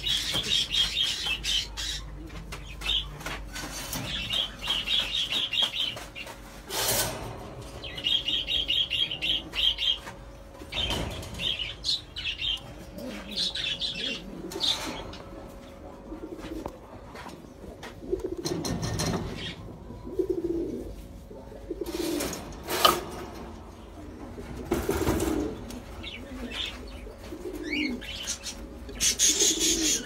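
Domestic pigeons cooing and flapping their wings, with small cage birds chirping in short repeated trills.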